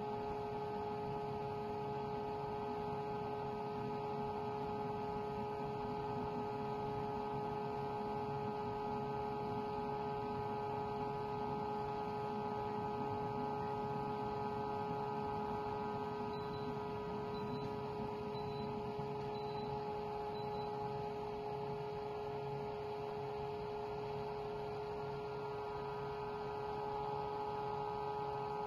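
Vibratory stress relief exciter shaking a large steel casting, giving a steady machine hum: a constant buzzing tone with several fixed overtones and no change in pitch.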